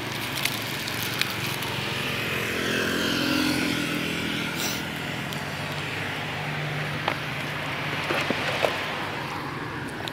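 Road traffic going by: motorbikes and cars on the road. One vehicle passes close and swells in level a few seconds in, then fades, with a few light clicks near the end.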